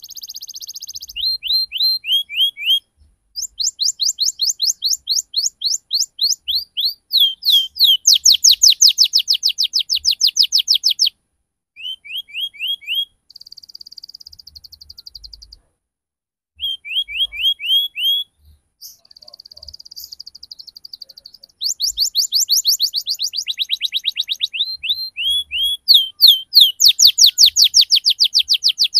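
Domestic canary singing: fast rolling trills of repeated downward-sweeping chirps, in runs of a few seconds broken by short pauses. Twice in the middle the trills give way to a quieter buzzing passage.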